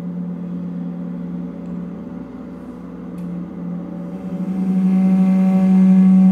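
Meditation music: a low sustained drone with faint steady tones above it, swelling louder about two-thirds of the way through.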